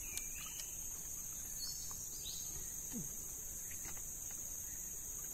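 Steady high-pitched insect chorus, with a few faint short bird chirps.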